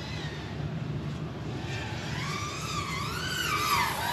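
FPV quadcopter's motors and propellers whining, the pitch rising and falling with the throttle; it comes in a little before halfway and grows louder toward the end.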